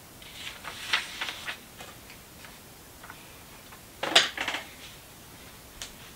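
Hands handling the paper of open Bibles: soft page rustles and light taps about a second in. About four seconds in comes a louder, brief crisp rustle with a few taps as a paper bookmark card and pencil are picked up and set down.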